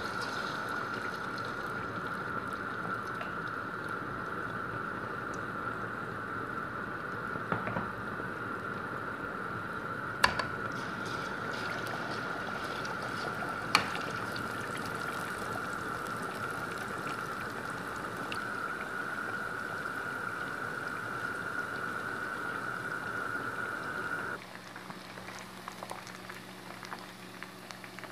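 Marinated chicken pieces deep-frying in a pot of hot oil: a steady sizzle and bubbling, with three sharp knocks of the stirring spatula against the pot. A steady high tone runs under it until near the end, when the sound drops abruptly to a quieter bubbling.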